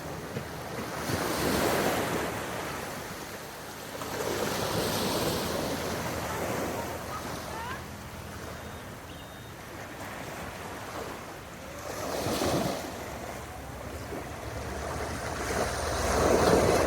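Sea water washing in irregular surges every few seconds, with wind buffeting the microphone.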